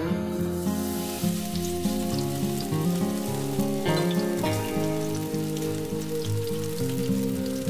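Chive pancake batter sizzling in hot oil in a frying pan: a steady hiss with fine crackles that starts suddenly. Gentle background guitar music plays underneath.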